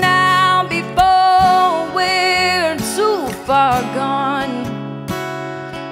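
A woman singing long held notes with vibrato over strummed acoustic guitar.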